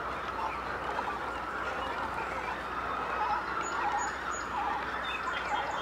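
Double-crested cormorant nesting colony: a continuous din of many birds calling from the nest trees, with short repeated calls standing out every second or so.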